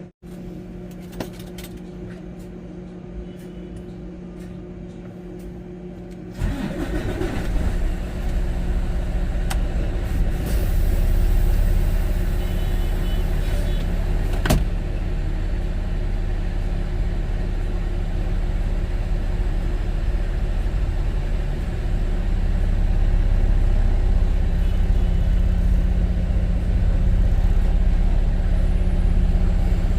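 A steady machine hum, then a large vehicle engine's low, loud rumble comes in suddenly about six seconds in and keeps running, with one sharp click partway through.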